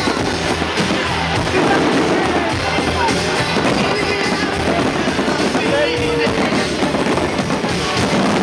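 Music playing loudly and steadily, mixed with the sound of a fireworks display of aerial shells going off.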